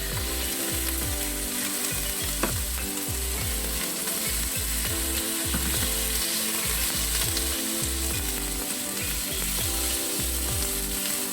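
Chicken breast strips sizzling in hot oil in a wok with garlic and onion, a steady hiss, with a few clicks and scrapes as they are stirred.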